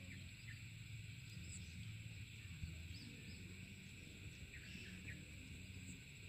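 Rural field ambience: a steady, high insect drone with a few faint, short chirps scattered through it, over a low rumble.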